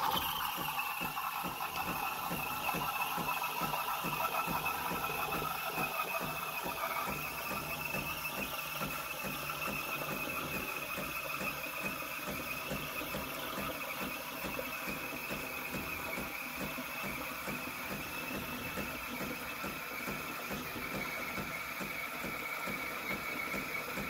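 DeLonghi Caffè Corso espresso machine's steam wand frothing milk in a glass: a steady hiss with a high whistling tone running through it.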